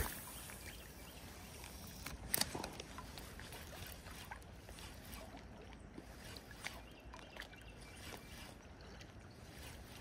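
Faint rush and lapping of river water at the bank, with scattered light ticks and one sharper click about two and a half seconds in.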